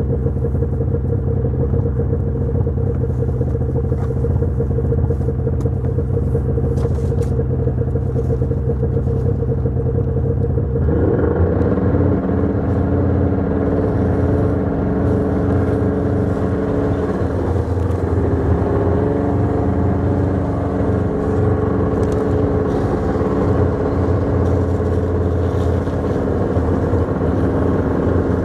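Engine of the vehicle towing a sled, running steadily, then about eleven seconds in its note changes and grows fuller as it pulls away under load and keeps running.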